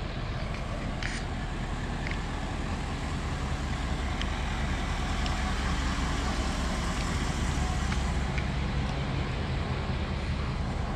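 Idling engine of an ambulance, a steady low hum that grows louder over the first few seconds, over general street traffic noise.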